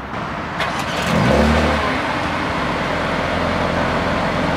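Mercedes-AMG GLB 35's 2.0-litre turbocharged four-cylinder engine starting, heard from behind at the tailpipes: after a brief crank it catches about a second in with a short rising flare of revs, then settles to a steady idle.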